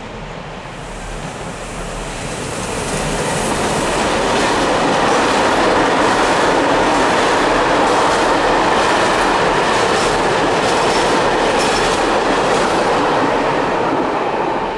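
Freight train hauled by a Class 185 electric locomotive passing close by: a loud rumble of wheels on rail with irregular clacking, swelling over the first four seconds as the train draws level, then steady as the container wagons roll past.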